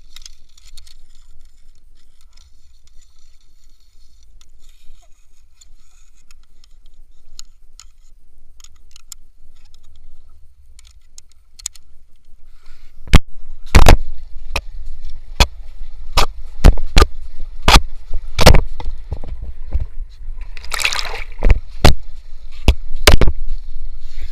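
River water sloshing and splashing close to the microphone as a person moves through it on a rope. About halfway through, a run of sharp, irregular knocks begins, roughly one or two a second, and there is a louder splash near the end.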